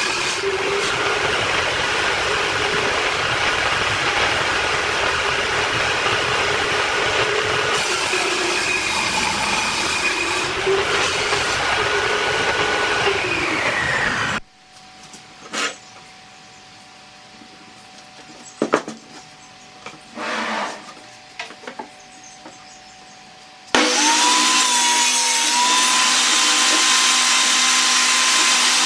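Homemade table saw cutting MDF board: rasping cutting noise over a steady blade whine. About halfway it cuts off abruptly, leaving a quieter stretch with a few knocks as boards are handled. Then the saw is heard running again with a whine.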